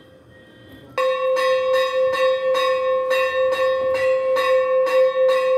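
A bell rung rapidly on one sustained note, about three strokes a second, starting abruptly about a second in.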